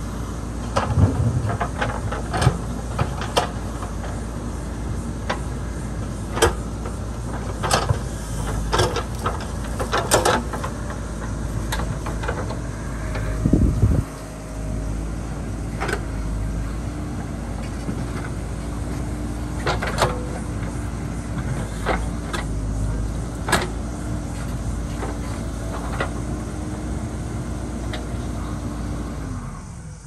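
JCB backhoe loader's diesel engine running steadily, with sharp metallic clanks and knocks every second or two. A louder rising surge around 13 seconds in cuts off suddenly just after 14 seconds, and the engine note drops away near the end.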